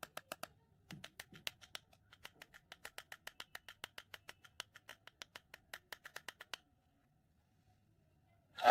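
Kinetic sand being cut: a quick run of crisp clicks, about six a second, that stops about two-thirds of the way through, followed by one louder crunch at the very end.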